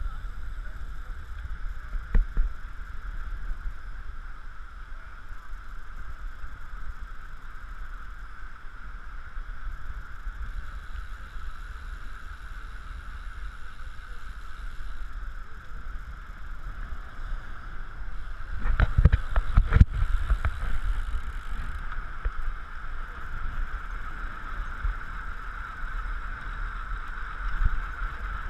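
Wind rush and road rumble from riding a recumbent bicycle on asphalt, picked up by a bike-mounted camera: a steady hiss with low rumble, a knock about two seconds in and a short run of louder bumps and knocks about two-thirds of the way through.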